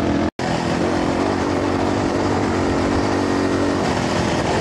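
Enduro motorcycle engine running at a steady pace on a gravel dirt road, under a constant hiss of wind and road noise. The sound cuts out for an instant about a third of a second in.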